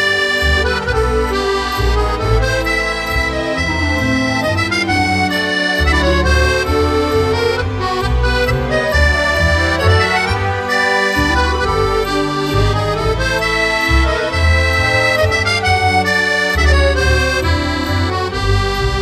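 Instrumental background music: a melody carried over a recurring bass line.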